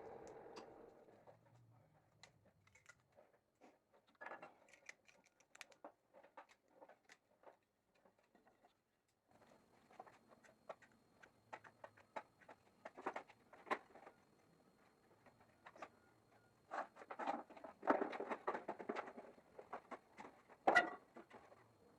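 Scattered light clicks, taps and knocks of wood pieces and hand tools being handled on a workbench, busier about three-quarters of the way through, with one sharper knock near the end. A louder sound dies away in the first second.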